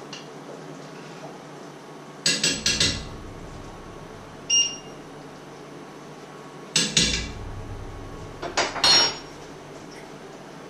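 Kitchenware being handled: quick bursts of clattering knocks as pans, utensils or a board are set down, with a single short ringing clink between them. There are four bursts in all; the heaviest knock comes about two-thirds of the way through.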